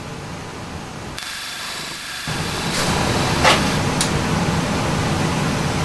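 Brass checkers clicking as they are set down on a steel saw table, two sharp clicks near the middle, over a steady rushing background noise that steps up about two seconds in.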